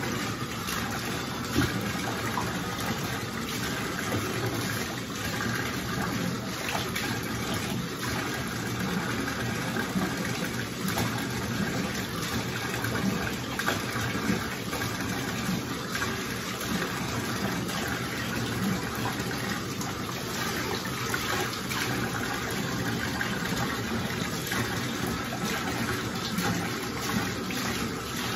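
Steady spray of water from a handheld shower head in a bathtub, running over a Shih Tzu being rinsed, with a few brief knocks and splashes.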